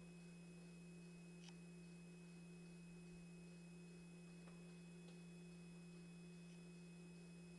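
Near silence: room tone with a steady low electrical hum and a few very faint ticks.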